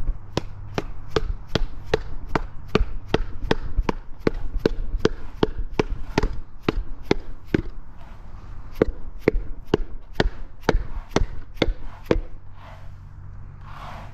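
Rubber mallet striking a hand-held PVC item in a steady series of sharp knocks, about two to three a second. There is a short pause about halfway through, then a second run that stops about two seconds before the end.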